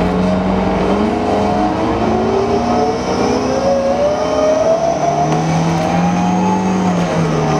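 Transit bus running, giving off an odd mix of pitched tones that slide up and down in pitch over the engine noise. This is the bus's unusual sound.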